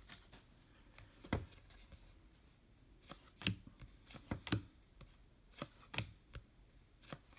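Trading cards being handled: scattered soft taps and slides of card stock as cards are flipped through and set down.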